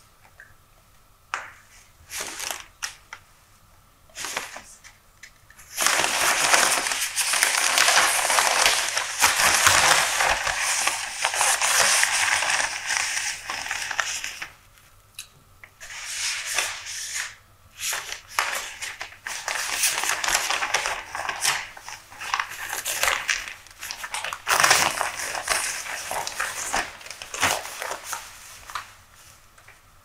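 Newspaper pages rustling and crinkling as they are handled and turned. A few short rustles and taps come first, then long stretches of loud, continuous crackling, with a short lull about halfway through.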